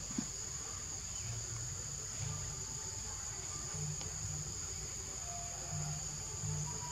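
Steady high-pitched insect chorus, holding one even pitch throughout, with a low background murmur and a single faint tick about a quarter of a second in.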